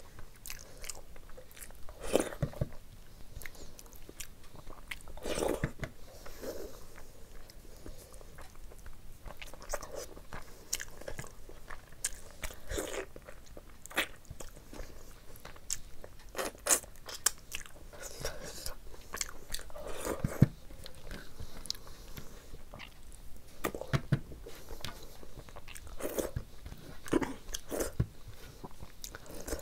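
Close-up eating sounds: biting and chewing mouthfuls of rice and chicken curry eaten by hand, heard as irregular mouth clicks, a few louder than the rest.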